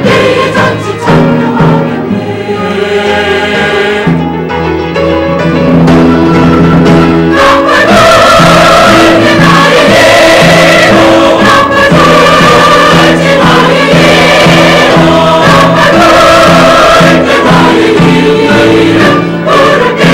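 Church choir singing in parts, with long held notes, swelling fuller and louder about seven seconds in.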